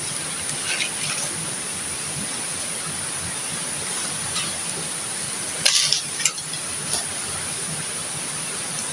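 Steady rush of flowing river water, with a few brief light clinks and knocks about a second in and again around six to seven seconds in.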